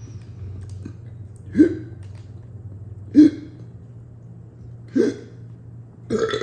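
A man hiccuping four times, each a short sharp catch, about one and a half to two seconds apart.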